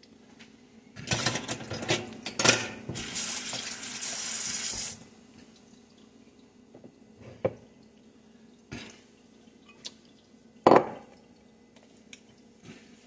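Kitchen utensils clattering, then a kitchen tap running steadily for about two seconds, followed by a few scattered knocks and clinks, the loudest of them about two-thirds of the way through.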